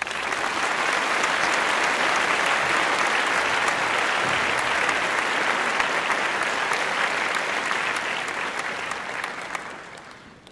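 A crowd applauding, a dense steady clapping that fades out over the last couple of seconds.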